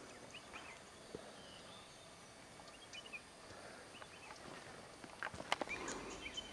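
Faint open-air ambience with scattered short bird chirps, and a cluster of sharp clicks a little past five seconds in.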